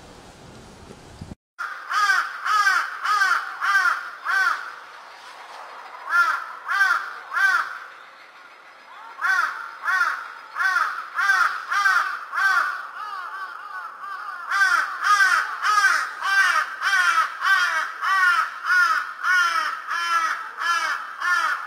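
A bird calling again and again in quick runs, about two to three short calls a second with brief pauses between runs, starting about a second in after a quiet outdoor background.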